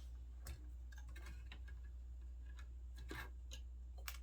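Scattered small clicks and taps at irregular intervals from hand tools and loose parts as the electronic components of a 1960s Talk-A-Phone intercom are worked loose.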